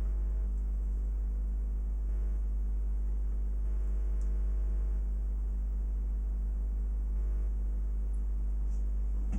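Steady electrical mains hum, a constant low buzz with evenly spaced overtones and no change in pitch or level.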